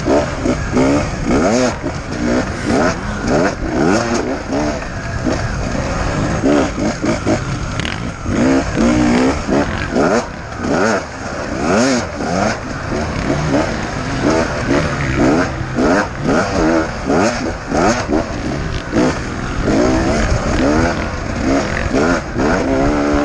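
Beta 250RR two-stroke enduro motorcycle engine revving hard and dropping back again and again as the rider accelerates, shifts and rolls off along a dirt track.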